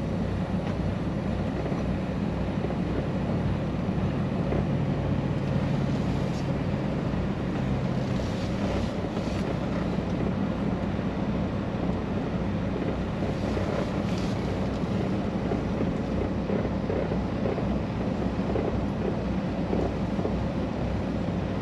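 Semi truck's diesel engine running while the truck rolls slowly, heard inside the cab as a steady low drone, with a few brief louder noises partway through.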